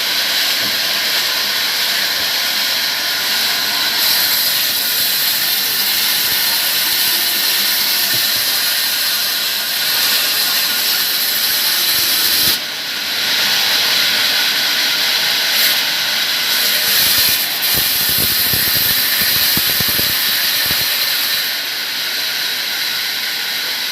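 Sawmill saw cutting palm wood: a loud, steady, high hiss, with a brief dip about halfway through.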